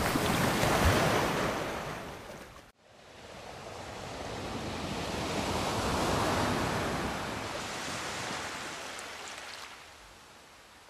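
Ocean waves washing in and receding: one wave fades out and is cut off abruptly about three seconds in, then a second wave swells and slowly dies away.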